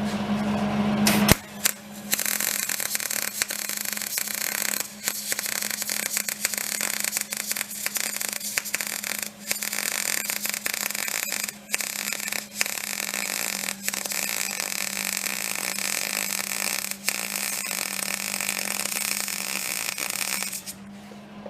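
Electric arc welding on steel: a steady crackling sizzle that starts suddenly about a second in, with brief breaks in the arc, and stops shortly before the end. A steady low hum runs underneath. The welder is drawing its load from a generator running on wood gas.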